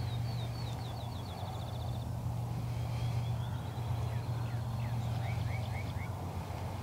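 Small songbirds singing: a rapid trill of short high notes for about the first two seconds, then a few quick down-slurred whistles about five seconds in. A steady low hum runs under it.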